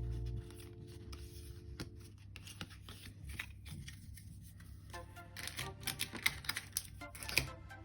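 Background music that cuts off about half a second in, followed by soft rustling and small clicks of packaging being handled. The handling gets busier and louder over the last three seconds, with faint music under it.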